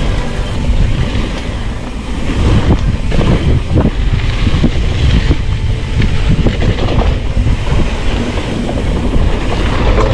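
Mountain bike rolling fast down a rough dirt trail: steady tyre rumble and wind buffeting on a chest-mounted camera, with constant rattling and knocks from the bike over rocks and roots.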